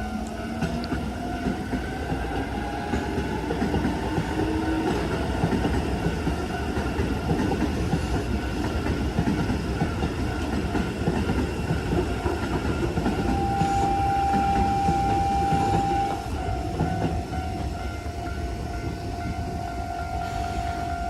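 A Keisei electric train passing over a level crossing: a steady rumble and rhythmic clatter of wheels on the rails, loudest in the middle and easing a little near the end. The crossing's warning bell rings steadily throughout, and a whine rises in pitch over the first few seconds.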